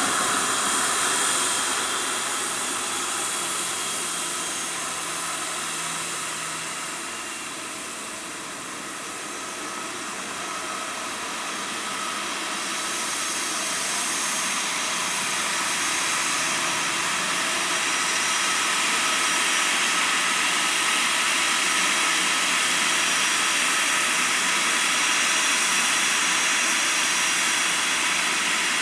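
Jet airliner's engines running as it taxis, a steady rush with a high whine. The sound fades a little, then grows louder about halfway through and holds steady.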